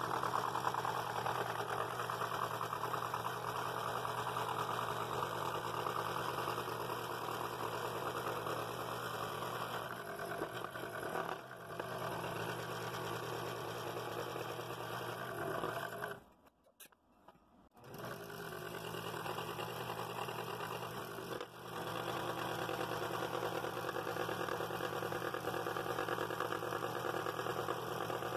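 Scroll saw running, its blade stroking up and down as it cuts through a wooden board along a pattern line. The sound cuts out for about a second and a half about two-thirds of the way through, then resumes.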